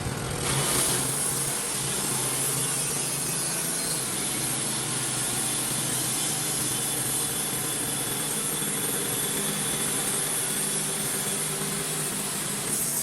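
Wood-Mizer portable band sawmill running steadily, its engine pulling the band blade through a log, with a slight swell about half a second in.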